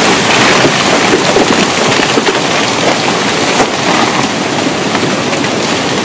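Landslide of earth and trees crashing down into a lake: a loud continuous rushing with scattered cracks and splashing.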